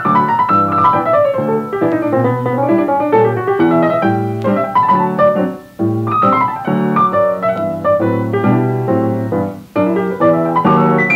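Easy-listening piano music, a steady stream of notes over chords.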